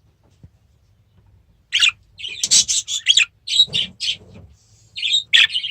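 Budgerigars chirping: a run of short, high chirps and chatter that begins a little under two seconds in.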